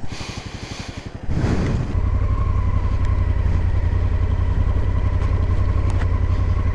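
Motorcycle engine of a 2018 Honda Africa Twin, a parallel twin, running softly at first, then picking up a little over a second in and pulling steadily under throttle, with a thin steady whine over it.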